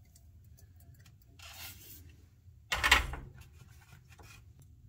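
Soldering iron set back down with a single sharp knock about three seconds in, after a brief soft rustle, over a faint low hum.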